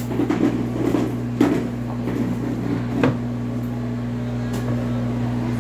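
A few light knocks and clicks of small objects being handled and set down, the sharpest about a second and a half in, over a steady low electrical hum.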